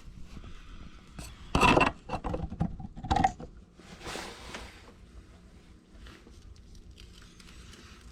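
Hard objects being handled during hands-on work: a few loud clatters and scrapes between about one and a half and three and a half seconds in, then faint clicks and rustling.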